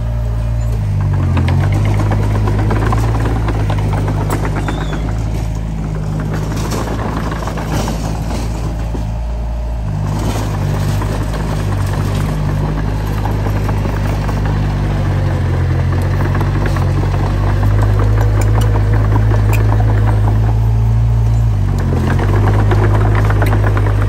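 Komatsu D20P bulldozer's diesel engine running steadily under work, its pitch dipping briefly about a second in and again near the end, with a busy metallic clatter over it.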